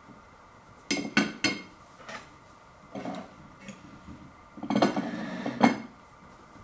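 Knife and fork clinking and scraping on a plate while cutting into a pastry pie: a quick run of sharp clinks about a second in, a few single clinks after, and a longer, louder stretch of clattering and scraping around five seconds in.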